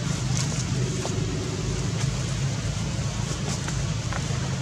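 A steady low hum like an engine running, with a few faint clicks over it.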